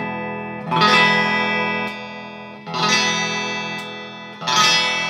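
BC Rich B electric guitar played on a Mesa Boogie Badlander amplifier's clean channel, with both humbuckers on and split to single coil. Three full chords are strummed about two seconds apart, and each is left to ring out and fade.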